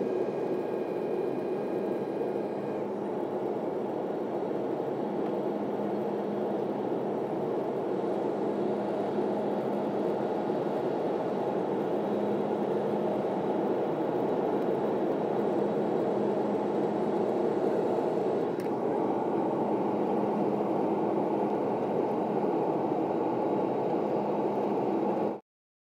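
Steady drone of an airliner's jet engines and rushing airflow, heard from inside the passenger cabin in flight. It cuts off suddenly near the end.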